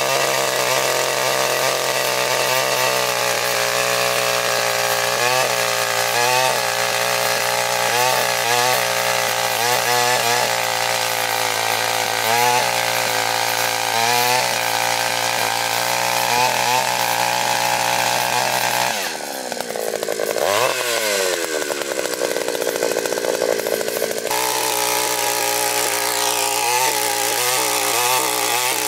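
Takyo TK3P earth auger's 82cc petrol engine running hard as the auger bores into hard soil, its pitch dipping and recovering again and again under the load. About two-thirds of the way through, the engine drops in speed and glides back up over a few seconds, then settles back into its labouring run.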